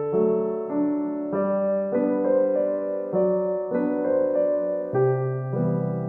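Background music: a gentle piano or electric-piano tune, with new chords sounding about every half second to second.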